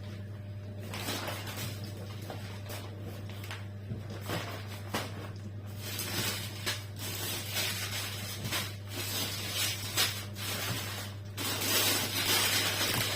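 Plastic food packaging crinkling and rustling as it is handled and opened, with irregular crackles and clicks that grow louder near the end, over a steady low hum.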